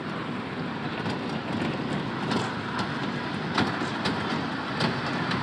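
Small children's ride-on park train running on its narrow rail track: a steady rumble of its wheels on the rails, with a few sharp clicks scattered through it.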